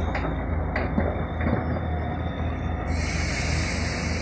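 Heavy diesel construction machinery running as a steady low rumble, with a few short knocks in the first second and a half and a hiss that joins in about three seconds in.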